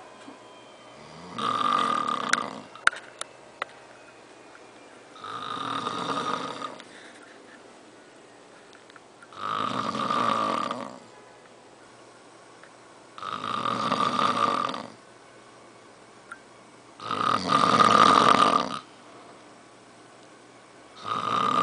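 A man snoring in his sleep, with a loud rasping snore on each in-breath about every four seconds and quiet in between. Six snores in all; the fifth is the loudest and the last starts near the end.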